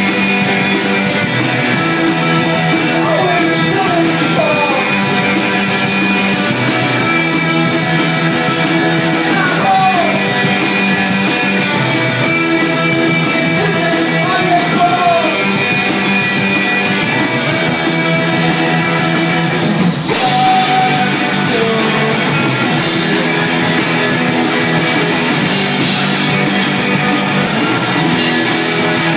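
A live indie rock band playing loudly: electric guitar and a drum kit, heard from the audience in a bar. The music changes about two-thirds of the way in, with the upper end filling out.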